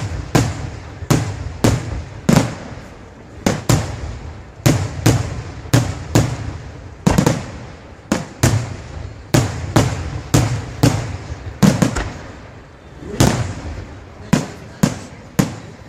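Aerial firework shells bursting in quick succession, about two sharp bangs a second, each followed by a rolling echo.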